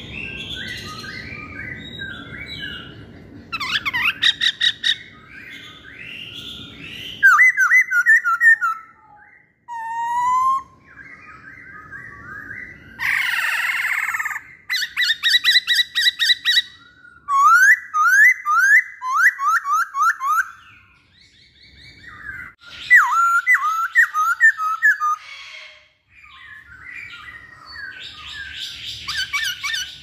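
Caged masked laughingthrush (poksay Hongkong) singing a loud, varied song of whistled phrases and fast runs of repeated notes, broken by short pauses.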